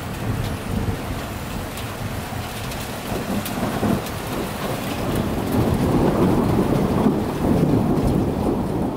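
Steady rain with rolling thunder; the rumble swells in the second half and eases off near the end.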